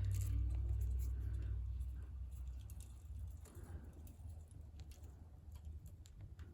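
Rusted SMC-made Hampton Bay Littleton ceiling fan motor winding down after its power is cut, its low hum fading away over a few seconds. Scattered light clicks alongside.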